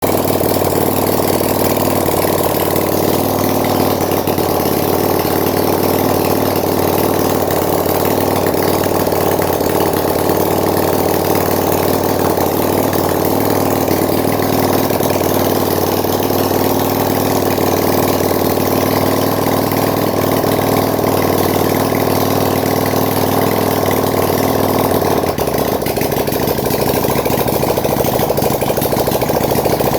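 Handmade 300cc V-twin engine built from Honda Tiger parts, idling steadily on its own before being fitted into a frame. About 25 seconds in, its note changes and drops lower.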